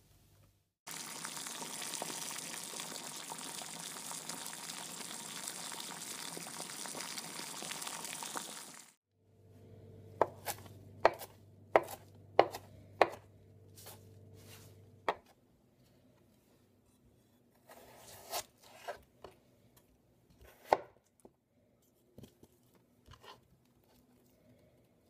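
A steady sizzling hiss for about eight seconds from pulled chicken simmering in barbecue sauce in a pot. It stops abruptly, and a chef's knife then chops cilantro on a cutting board: half a dozen sharp knocks over a low hum, followed a few seconds later by a further scattering of knife strokes as a cucumber is cut.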